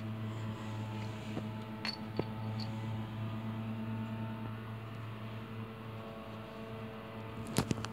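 A steady low electrical hum with a few faint clicks and taps; the loudest clicks come near the end.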